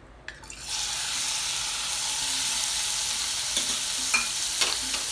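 Raw chicken strips sizzling as they go into hot olive oil in a non-stick pan: the sizzle starts about half a second in and then holds steady, with a few light clicks near the end.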